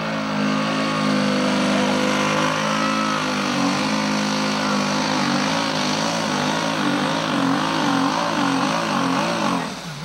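A pulling tractor's engine running hard at high revs under load. Its pitch holds steady at first, then wavers up and down about one and a half times a second through the second half and drops off near the end.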